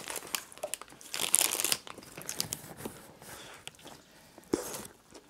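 Paper hamburger wrapper crinkling and tearing as it is peeled open, in irregular rustles, then a bite into the burger near the end.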